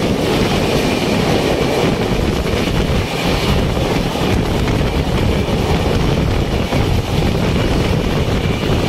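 Passenger express train running at speed, heard from the open doorway of a coach: a loud, steady rumble and rattle of the wheels on the rails.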